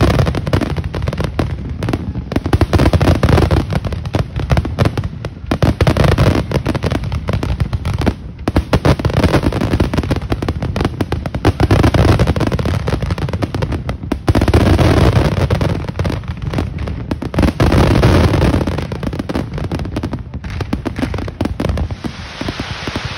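Aerial fireworks bursting in a heavy barrage: many rapid, overlapping bangs with no let-up, easing off near the end.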